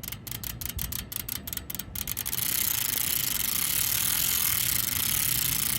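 Ride Out Supply 15-tooth 9-pawl BMX freewheel ratcheting as the rear wheel turns. It starts as a run of separate, evenly spaced clicks, and about two seconds in becomes a fast, continuous buzz of clicking.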